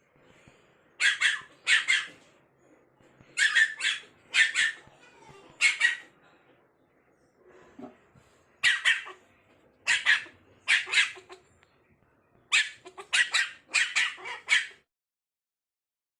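A spitz-type puppy barking in sharp, high barks, in short runs of two or three with pauses between, and a quicker volley near the end. It is barking in protest at being left stranded up on a stool or sofa.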